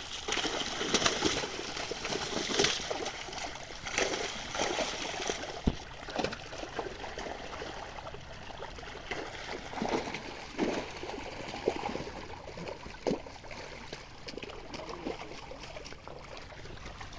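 Pond water splashing and sloshing irregularly as fishermen work a net through it, with the busiest and loudest splashes in the first few seconds.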